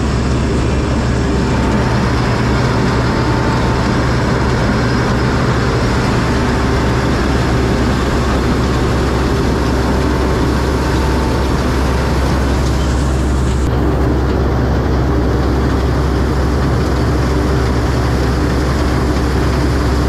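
Paddy combine harvester running steadily while it cuts rice: a constant engine drone with the header and reel working, heard close up from on board the machine.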